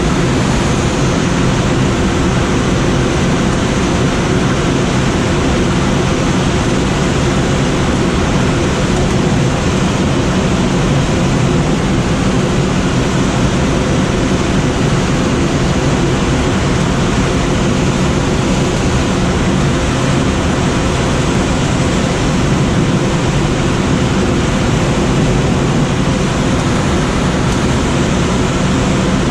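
Steady, loud rush of air around the cockpit of a Schweizer SGS 2-32 glider in flight.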